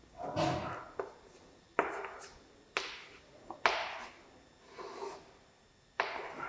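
Chalk on a chalkboard: a series of about seven short, separate taps and strokes, each starting sharply and fading quickly, as points are marked and a parabola is drawn.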